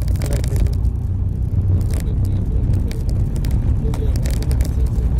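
Road and engine noise of a moving vehicle heard from inside its cabin: a steady low rumble with scattered light clicks and rattles.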